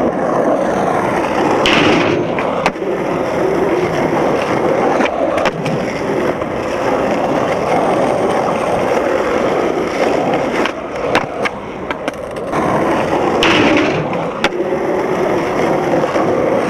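Skateboard wheels rolling over rough asphalt, a loud continuous rumble. A few sharp clacks and knocks of the board break through now and then, and there are two brief scraping hisses, near the start and about three-quarters of the way in.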